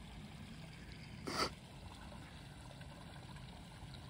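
Faint outdoor ambience with a low, steady rumble and one brief hissing burst of noise about a second in.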